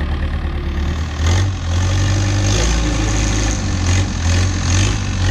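Longtail boat engine running under way: a steady low drone that grows louder about a second in, with a hiss of heavy rain over it.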